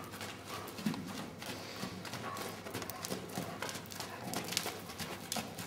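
Hoofbeats of a small pony trotting and walking on arena sand: irregular soft thuds and knocks.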